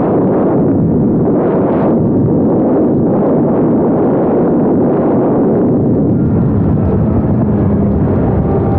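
Wind rushing over the microphone of a motorcycle ridden at speed: a loud, steady rumble with no clear pitch.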